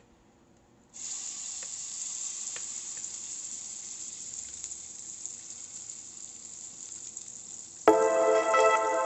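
Ground masala paste dropped into smoking-hot oil in a nonstick frying pan, sizzling sharply from about a second in and slowly easing, with a couple of light clicks from the spoon scraping it out of the bowl. Background music starts suddenly near the end and is louder than the sizzle.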